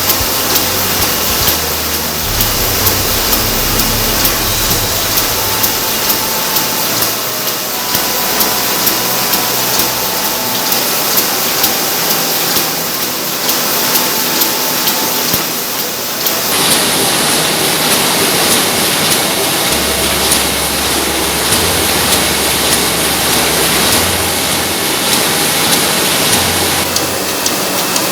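Printing-shop machinery running steadily with a fast, regular mechanical beat under a dense noise.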